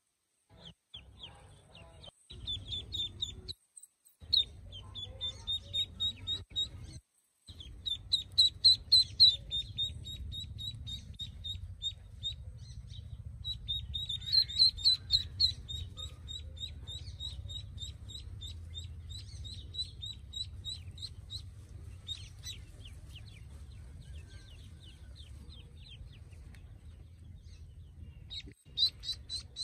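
Newly hatched Pekin ducklings peeping: many short, high-pitched peeps in quick runs of several a second, overlapping and loudest in a few busy bursts, over a low steady rumble.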